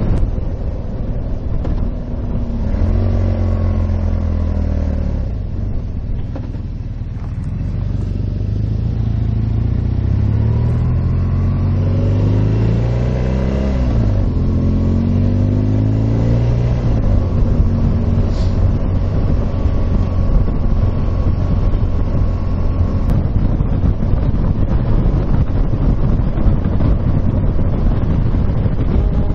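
Motorcycle engine under way with wind rushing over the microphone. The engine note drops about three seconds in, climbs again as the bike accelerates about ten seconds in, then settles into a steady cruise.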